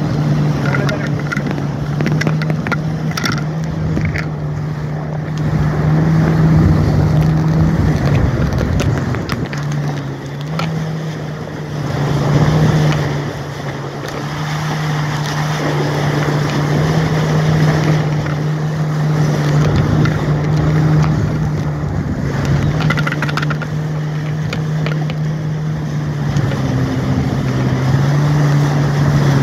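Jet ski engine running steadily at speed, a constant drone mixed with rushing wind and water spray. The engine note drops briefly and picks up again about ten seconds in.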